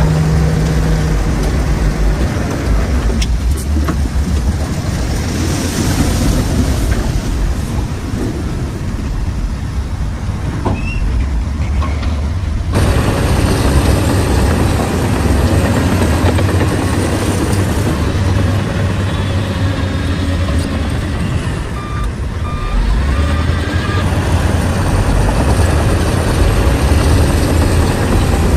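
Shantui bulldozer's diesel engine running steadily under working load, with an abrupt shift in the sound about halfway through.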